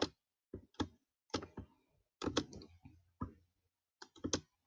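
Irregular clicks of a computer mouse, about ten over a few seconds, some in quick pairs.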